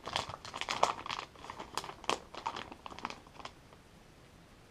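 Plastic bait packaging crinkling as it is handled, an irregular run of sharp crackles that dies away about three and a half seconds in.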